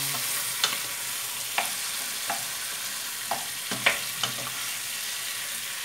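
Chicken drumsticks frying with spices in a stainless steel pot: a steady sizzle, with a wooden spoon stirring and knocking against the pot about half a dozen times.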